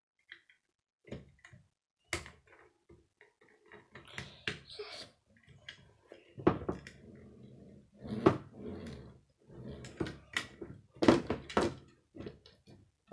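Plastic Lego parts being handled and pressed onto a toy car: a string of irregular clicks and knocks.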